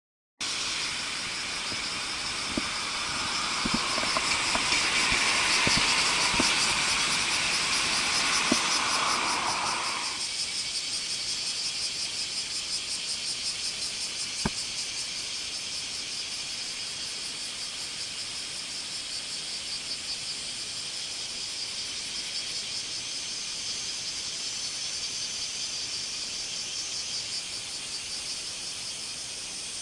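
Steady high-pitched chorus of summer insects chirring. A louder, lower chirr sits over it for the first ten seconds and fades out. A few light ticks and one sharp click come about fifteen seconds in.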